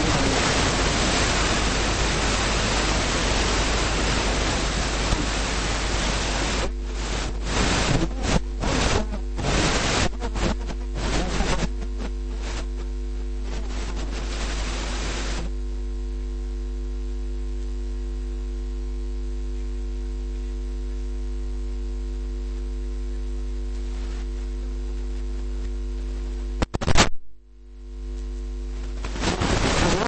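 Recording noise: loud hiss and static over a steady electrical mains hum. The hiss cuts in and out repeatedly and stops about halfway through, leaving only the hum. The sound drops out briefly near the end.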